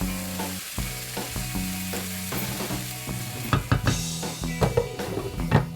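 A spatula stirring and scraping spiced black-eyed beans in a frying pan, with a light sizzle, over background music. The scraping clatter is heaviest in the second half.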